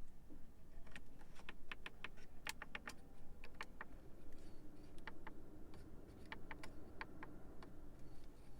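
Irregular series of sharp clicks from a car's interior buttons and switches being pressed and operated, over a faint steady hum.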